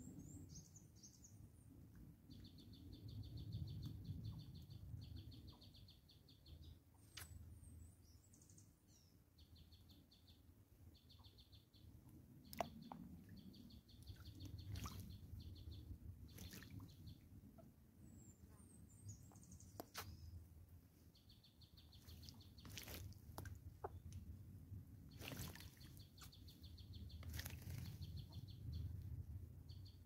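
Faint birdsong: small birds give short, thin, high chirps that fall in pitch, a few at a time every several seconds. Under them runs a fast pulsing trill that comes and goes in bursts of one to three seconds, over a low rumble with an occasional sharp tick.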